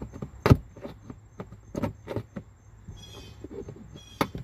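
A metal pry tool working the plastic push clips of a 2017 Nissan Altima's front wheel-well splash shield: a few sharp clicks and knocks, the loudest about half a second in, with a short squeak about two-thirds of the way through.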